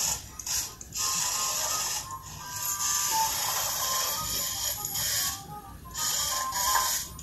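Small toy battle robots driving and shoving each other: their little gear motors whir and ratchet, with some plastic clatter. The sound cuts out briefly a few times as the drives stop and start.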